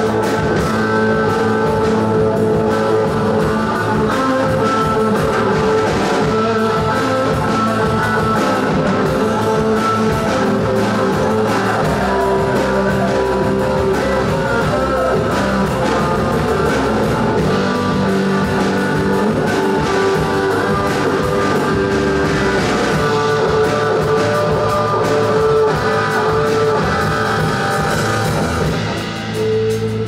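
Live rock band playing: electric guitar, bass guitar and drum kit, with a brief dip in level near the end.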